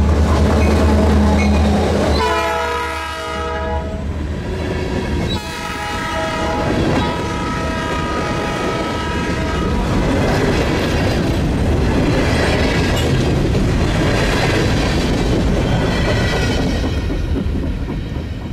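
Norfolk Southern diesel freight locomotive passing a grade crossing, its engine rumbling deeply as it goes by. Its multi-chime horn sounds several blasts over the first ten seconds, the last one the longest. Then covered hopper cars roll past with their wheels clattering on the rails.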